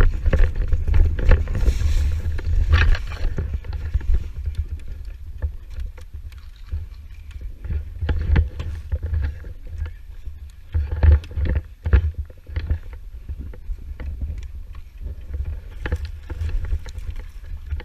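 Low rumble of wind and movement buffeting a helmet-mounted camera, with scattered sharp knocks and clicks. The knocks cluster in a few places, the busiest about a second in and again around eleven seconds.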